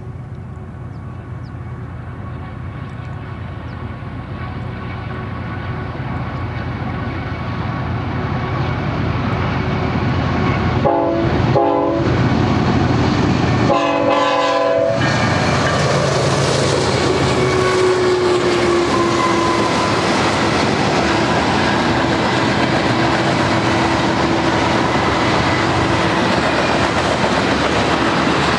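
Freight train's diesel locomotives approaching and growing louder, the horn sounding two short blasts and then a longer one about halfway through. As the engines pass, a tone drops in pitch, and then the freight cars roll by with steady wheel clatter on the rails.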